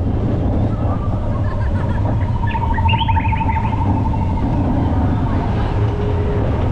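Roller coaster train rolling along its steel track, a steady low rumble, with a brief high pulsing squeal about three seconds in.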